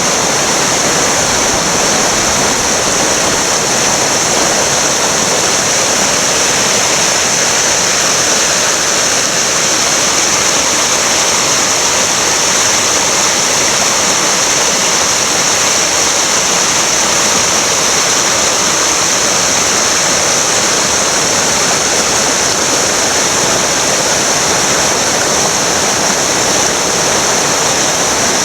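Río Cuadros running high, a loud, steady rush of fast water.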